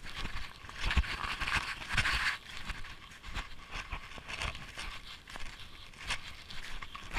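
Snowshoe footsteps crunching on packed snow, a step about once a second.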